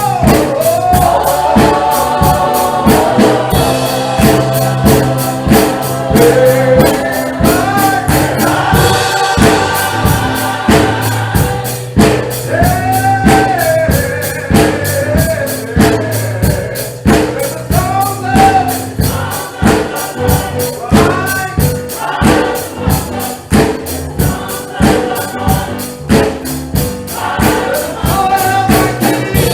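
Gospel music: a choir singing over a steady, fast percussion beat with tambourine and bass.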